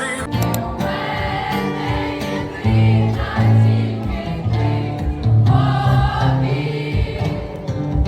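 Background music: a song with sung vocals, a steady bass line and choir-like voices.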